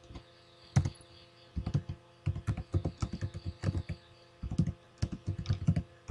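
Typing on a laptop keyboard: quick bursts of keystrokes with short pauses between the bursts.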